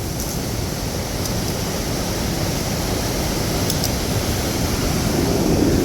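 Steady rush of white water from the torrent and waterfall in the gorge, an even roar of noise.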